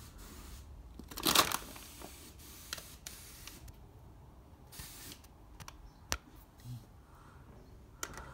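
Workshop handling noises: a short rasping noise burst about a second in, then scattered small clicks and knocks.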